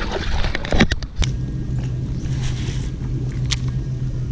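A bass splashing at the surface for about a second. After a cut, an electric trolling motor hums steadily, with a single click near the middle.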